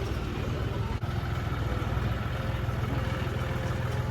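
Tractor engine running steadily with an even, low hum.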